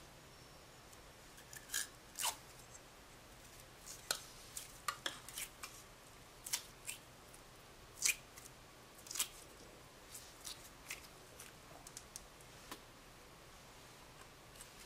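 Clear blue slime squeezed and squished by hand, giving irregular sticky clicks and pops as air pockets in it burst, most of them in the first ten seconds.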